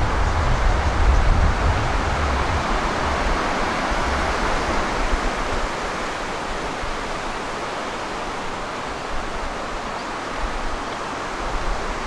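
Steady rush of water flowing over rock from the creek and waterfall, easing off gradually over the first half and then holding steady. Wind rumbles on the microphone for the first couple of seconds.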